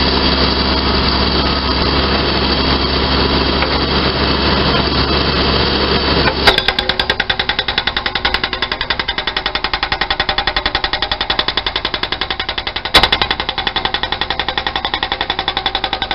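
Backhoe diesel engine running steadily, then about six seconds in the KENT KF9 hydraulic breaker starts hammering its chisel into the ground in rapid, even blows, with a louder hit when it starts and another about halfway through the hammering. The blow is a normal one for a freshly resealed breaker.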